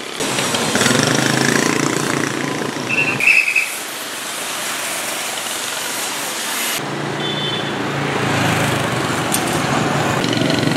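Road traffic: motor vehicle engines running as motorbikes and a truck pass close by, with a brief high squeal about three seconds in. The sound changes abruptly twice.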